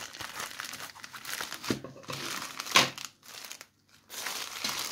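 Grey plastic mailer bag crinkling as it is handled and opened, with one sharp loud crackle near the middle. After a short pause, more plastic rustling follows as hands reach into the bag among the clear bags holding the gel polish bottles.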